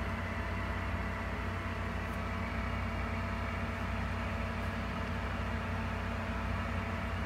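Steady low electric hum with a faint hiss from a small motor running without change, with a couple of faint light clicks as eggs are handled.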